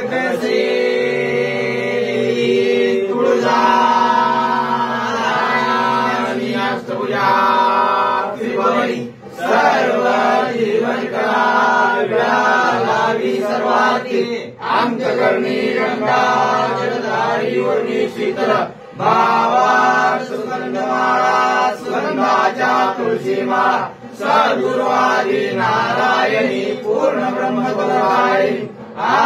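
Hindu devotional chanting by a group of male voices, a melodic chant sung together over a steady drone, running through with only brief breaths.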